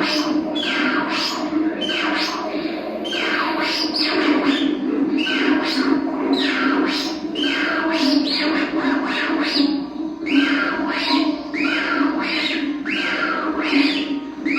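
Six Fisher-Price toy turntables playing at once, layered into a dense wash. Repeated falling squawk-like sweeps, about two a second, run over a steady drone.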